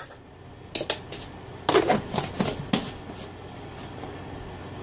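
Kitchen utensils being handled on a countertop: a single light knock about a second in, then a quick cluster of four or five knocks and clacks from a measuring cup and spoon.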